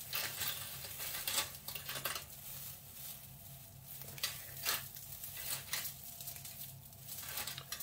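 Dried herb sprigs crackling and rustling as they are rubbed between the fingers and the leaves stripped off the stems, a string of irregular dry crackles.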